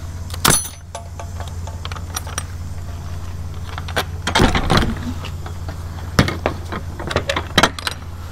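A padlock on a semi-trailer's rear door latch handle being unlocked and taken off: metal clicks, clinks and a rattle of keys, with a busier clatter about halfway through. Under it runs the steady low hum of the idling truck.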